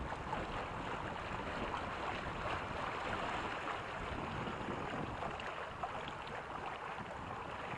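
Steady rush of water along the hulls of a Reynolds 21 catamaran under sail, mixed with wind buffeting the microphone.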